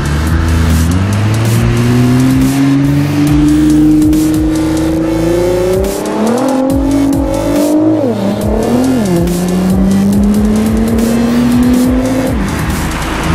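Nissan GT-R R35's twin-turbo V6 with an Akrapovič exhaust accelerating hard, its note climbing steadily through the revs. About seven to nine seconds in the pitch drops and jumps back twice, then it climbs again.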